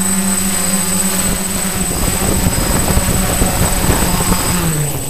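DJI F550 hexacopter's brushless motors and propellers humming steadily as it flies low over the grass. The sound turns rougher as it nears the ground, and near the end the pitch drops as the motors throttle down for landing.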